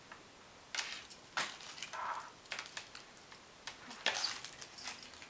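Hands handling wax paper on a flat iron: scattered light rustles and small clicks, with metal bangles and rings clinking now and then.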